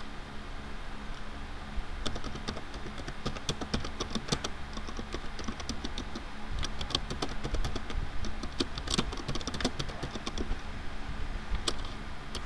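Typing on a computer keyboard: irregular key clicks beginning about two seconds in, over a steady low hum.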